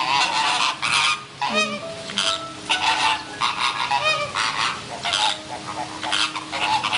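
A group of large birds honking, harsh calls repeating and overlapping about once or twice a second.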